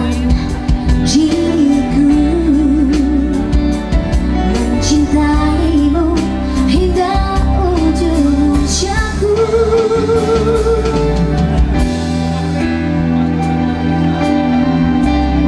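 A woman sings a slow pop ballad with vibrato over a live band, her voice stopping about twelve seconds in while the band plays on.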